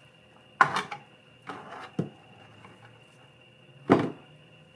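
Old iron horseshoe being put into a cut-open plastic jug of Evapo-Rust rust remover: a few short knocks of metal against the plastic and sloshes of the liquid. The loudest come about half a second in and near the end.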